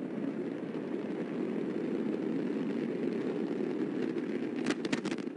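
Antares rocket's first-stage AJ26 engines in flight, a steady low roar, with a quick run of sharp cracks near the end.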